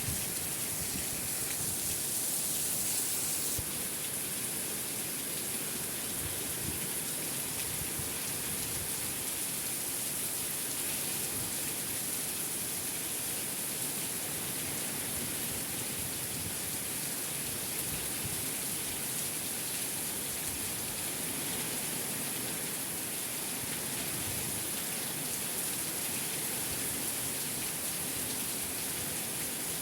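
Steady rain falling, a constant hiss of drops on surfaces. The highest part of the hiss eases slightly about three and a half seconds in.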